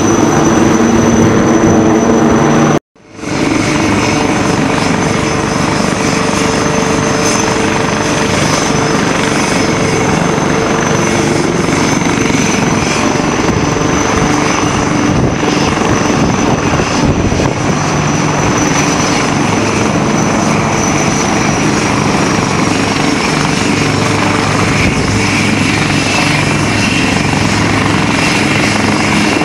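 HAL Light Combat Helicopter flying low, its rotor and twin Shakti turboshaft engines giving a steady loud drone with a high whine. The sound drops out for a moment about three seconds in, then resumes.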